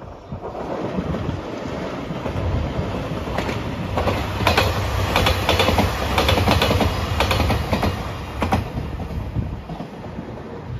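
JR Shikoku 2700 series diesel limited-express train passing close by. Its engine drone and rolling noise build up, then a run of clacks as the wheels cross rail joints through the middle, and the sound fades as the train moves away.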